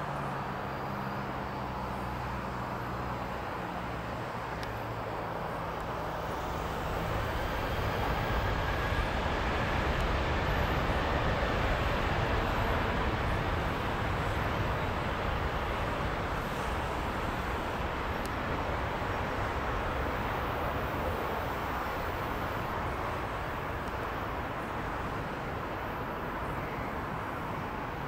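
Boeing 737-700 BBJ's CFM56-7B turbofan engines spooling up to takeoff thrust as the jet begins its takeoff roll. A low hum at first swells after about seven seconds into a loud roar with a rising whine, then slowly fades as the aircraft moves off down the runway.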